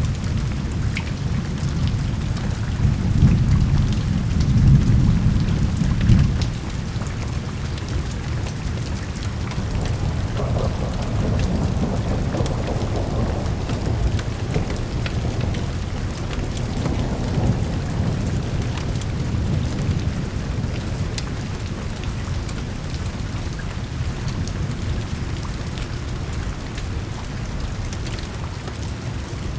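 Steady rain with a deep rolling thunder rumble, the thunder heaviest in the first six seconds and then easing into a lower, continuing roll under the rain.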